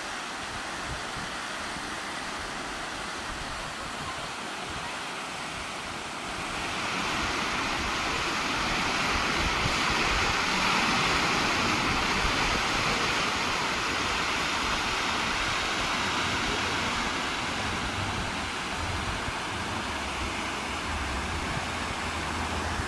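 Stream water rushing steadily, mixed with wind; the rushing grows louder about seven seconds in and stays up, with a faint low rumble near the end.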